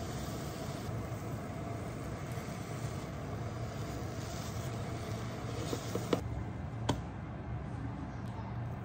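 Steady low hum with a light hiss from the kitchen, with two short sharp clicks about six and seven seconds in.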